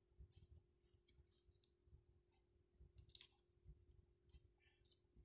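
Very faint, irregular clicks and taps of a plastic smartwatch and its charging clip being handled, over a faint steady hum.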